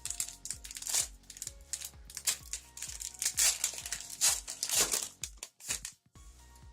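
Foil booster-pack wrapper crinkling in a run of sharp crackles as it is handled and opened, over quiet background music.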